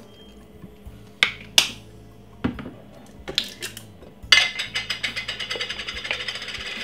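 Kitchen containers and utensils being handled off camera: a few separate clicks and knocks, then from about four seconds in a fast run of rattling clicks for about two and a half seconds.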